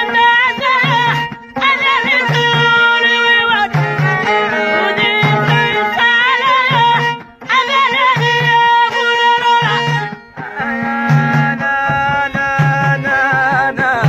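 Amazigh folk music: a violin played upright and a singing voice carry a wavering melody over frame drums keeping a steady low beat.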